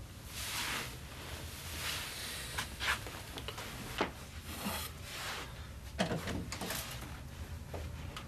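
Wooden chest of drawers being handled: a drawer slid open and things inside moved about, giving a series of scrapes and sharp knocks, the loudest about six seconds in.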